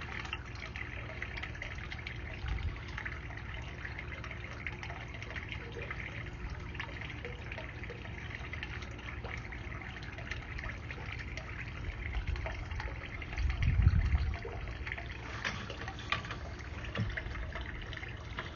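Water running and trickling steadily, with small crackles throughout and a short low thump about 14 seconds in.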